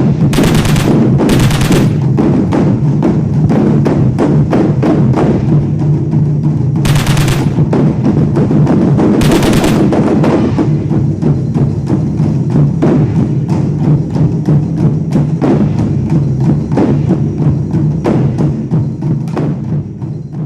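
Background music with a fast, driving drum beat, broken by four short loud crash-like bursts in the first half, fading out near the end.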